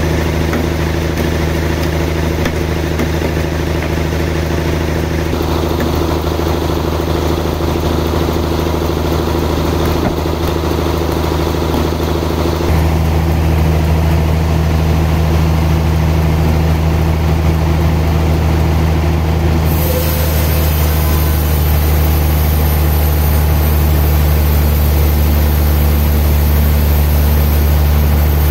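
Sawmill machinery running with a steady, loud hum that steps louder about halfway through, a high hiss joining in about two-thirds of the way.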